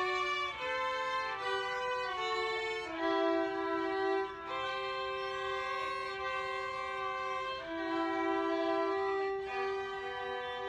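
A small ensemble of young students' violins playing a slow piece together, two lines sounding at once. The notes change about once a second at first, then are held longer.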